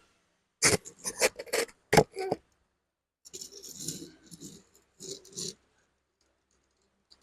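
Small toys being handled. A quick run of sharp clicks and knocks comes about a second in, the loudest near two seconds, followed by a stretch of rattling and scraping.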